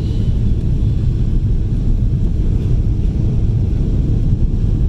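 Steady low rumble of a Boeing 777 airliner's engines and rushing airflow heard inside the passenger cabin during the descent to land.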